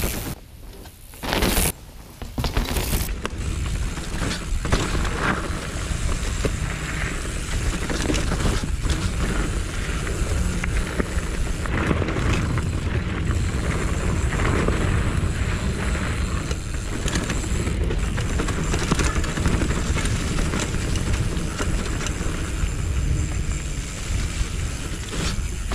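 Mountain bike riding over a dirt forest trail, heard close up from a GoPro: a steady low rumble of tyres and air with many small rattles and clicks from the bike over bumps. It starts about two seconds in, after a short quieter stretch.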